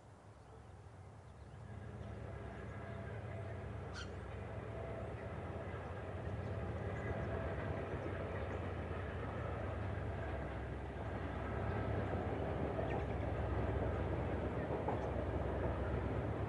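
Southern Shorthaul Railroad streamliner diesel locomotives approaching with an empty grain train. The low engine hum grows steadily louder, rising sharply about two seconds in and again near the end.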